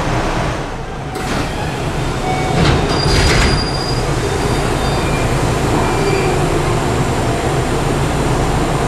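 JR West 207 series commuter train's passenger doors sliding open at a station platform, with a burst of hissing noise around three seconds in, then the steady hum of the stopped train with its doors standing open.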